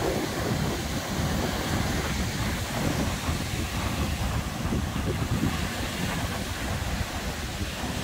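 Surf breaking and washing up a sandy beach in a steady rushing hiss, with wind buffeting the microphone.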